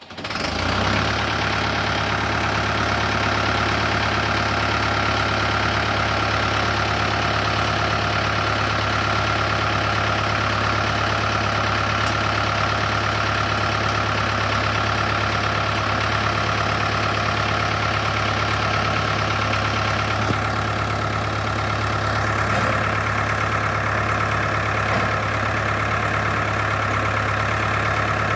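Ford 5000 tractor engine idling steadily.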